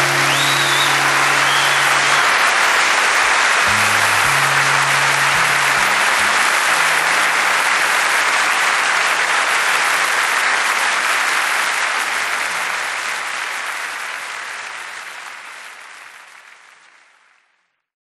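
Audience applauding at the end of a live acoustic song, with the last guitar notes ringing under the clapping for the first few seconds and a brief whistle near the start. The applause fades out near the end.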